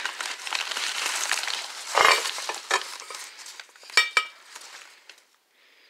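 Crumpled packing paper rustling and crinkling as it is pulled out of a crate, with a thump about two seconds in. About four seconds in, glass clinks twice against glass, ringing briefly.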